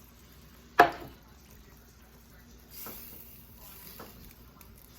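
A single sharp clink of kitchenware against a cooking pan about a second in, followed by faint soft handling and liquid sounds from the pan as more chicken broth goes in.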